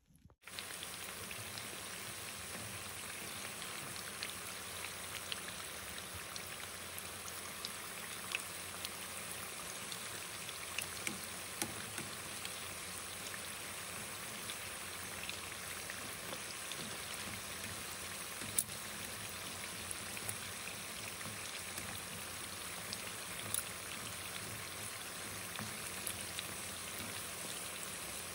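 Tuna lumpia deep frying in hot oil: a steady sizzle with scattered sharp crackles and pops. It starts suddenly about half a second in.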